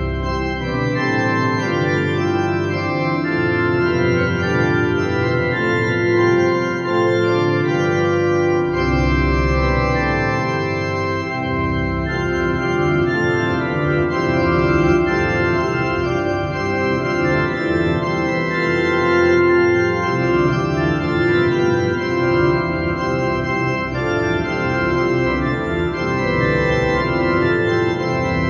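Organ music, the postlude after the benediction: slow, held chords that change every few seconds, with a deep bass pedal note sounding at the start and again about nine seconds in.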